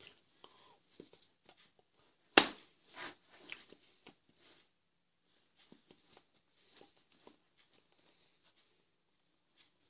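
Faint rustling and light clicks of hands and a leather jacket moving while signing, with one sharp knock about two and a half seconds in.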